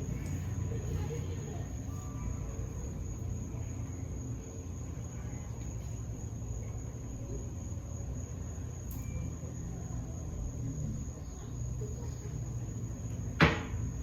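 Steady low background hum with a faint high whine, and one sharp click near the end, the loudest sound, as the curling wand and hair are handled.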